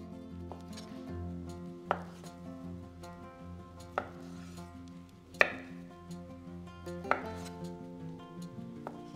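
Kitchen knife slicing through a log of mozzarella and knocking on a bamboo cutting board four times, about one to two seconds apart. The third knock is the loudest. Guitar music plays underneath.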